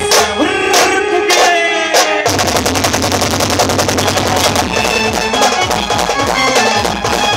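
Live street band music: a keyboard melody over evenly spaced drum beats, then about two seconds in the band's stick-beaten drums break into fast, dense rolls that carry on under the tune.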